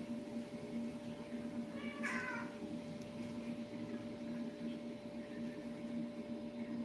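A cat meows once, briefly, about two seconds in, over a steady low hum.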